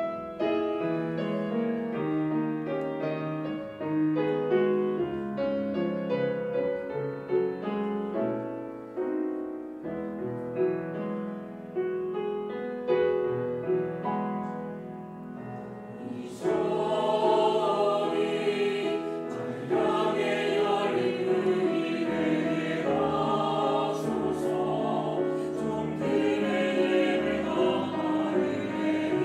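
Cello and piano playing a slow passage; about halfway through, a mixed choir comes in singing a hymn in Korean over the cello and piano.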